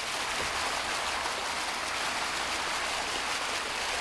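Vehicle tyres ploughing through a flooded road, throwing up a steady rush of spraying water, with a low hum underneath.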